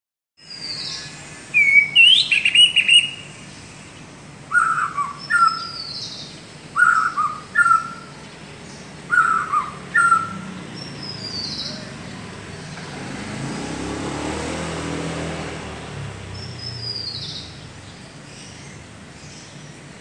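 A caged white-rumped shama calls in short, loud phrases: a falling high whistle followed by a pair of lower notes, repeated about every two seconds through the first half, with one last high note near the end. A low rushing swell rises and fades in the middle.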